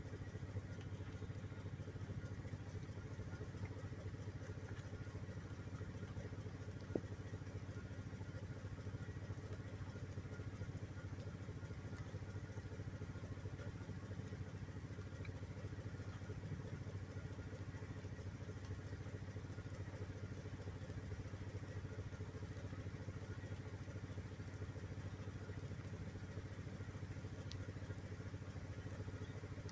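A steady low mechanical hum, with one sharp click about seven seconds in.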